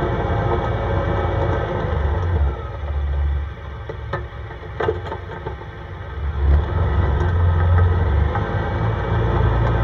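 CFMoto ATV engine running while driving over snow, easing off about three and a half seconds in and picking up again around six and a half seconds. Two short knocks sound during the lull.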